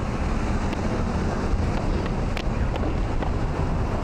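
Wind rumbling on the microphone over city street traffic noise, with a few faint ticks.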